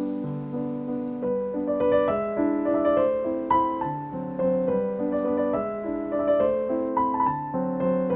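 Background piano music, a gentle melody of notes changing about every half second.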